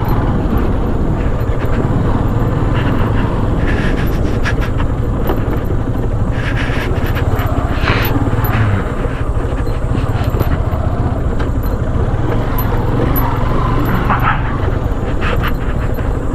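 Motorcycle on the move, its engine running with a steady low rumble and wind noise, with a few brief knocks from the road.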